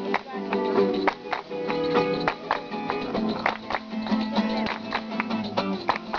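Acoustic guitar strummed in a steady rhythm, a Latin, flamenco-like accompaniment.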